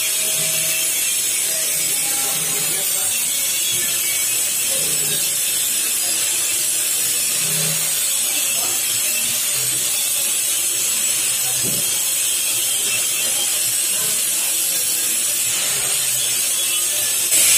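Plastic stretch wrap film being pulled off a hand-held roll and wound around a stainless steel table, crackling and rattling, under a steady high hiss.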